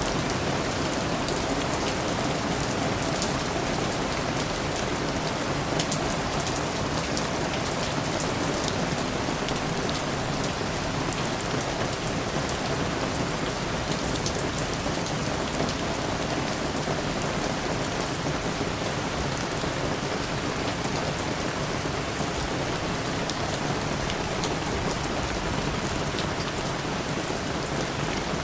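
Steady rain falling on surfaces, a continuous even hiss of rain with many small drop ticks.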